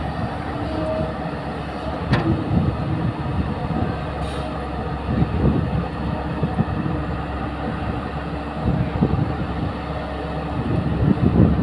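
Caterpillar tracked hydraulic excavator's diesel engine running under load as its bucket digs earth in a pit, the rumble swelling unevenly every few seconds. A sharp click about two seconds in.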